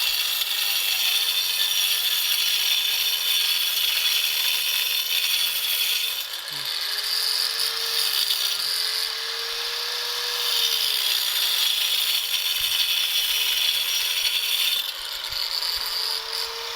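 Handheld electric power cutter running through material in one continuous cut: a steady loud hiss with the motor's pitch sagging and recovering under load. It slows and spins back up about six and a half seconds in, and again near the end.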